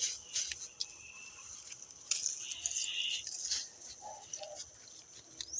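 Dry brush and twigs rustling and snapping as they are handled and piled, with irregular crackles and a denser stretch of rustling in the middle.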